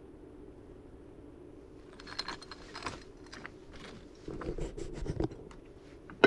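Footsteps crunching and scraping over loose lava-rock rubble. They begin about two seconds in as irregular crunches, with heavier thuds around the middle.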